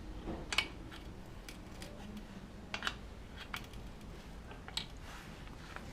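A few light, scattered metallic clicks and taps from hand tools working the rear-axle chain adjuster, over a faint steady hum.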